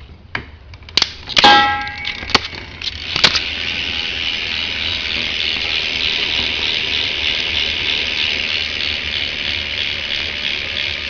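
Several metal clangs in the first few seconds, one ringing briefly. Then the BMX bike's Eastern rear hub freewheels with a fast, steady ratcheting buzz of pawls clicking as the rear wheel spins.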